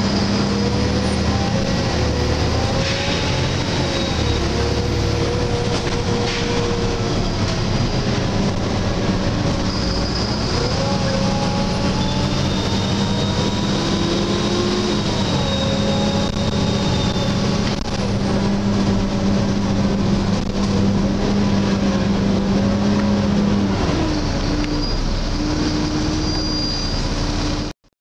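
Volvo B7LA articulated bus with Wright StreetCar body, heard from inside the passenger saloon while driving: the engine and drivetrain run with whines that rise and fall in pitch over a steady hum and road noise.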